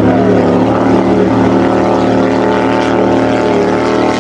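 Steady motorboat engine drone that holds one pitch throughout, matched to a toy speedboat.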